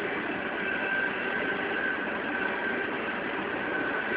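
Coal cars of a unit freight train rolling past, a steady rumble of steel wheels on rail with a faint high whine.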